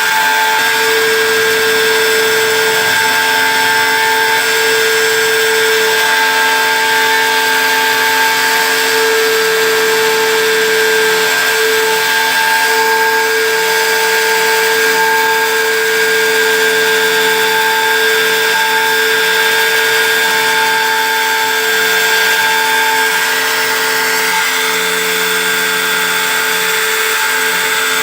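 CNC engraving machine at work: a steady high whine with hiss as it cuts, and a higher tone that starts and stops every second or two as the machine moves.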